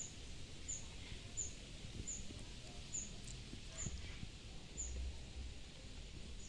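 A small bird's faint, high-pitched chirp, repeated evenly about once every three-quarters of a second, over a low wind rumble on the microphone.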